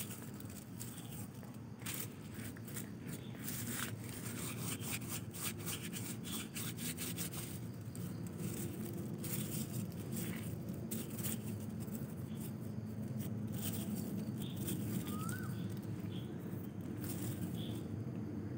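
Hands rubbing and scrunching a pile of small cut strips of notebook paper, crinkling them into curly gift filler: a dry, continuous crackling rustle made of many quick crinkles, over a steady low hum.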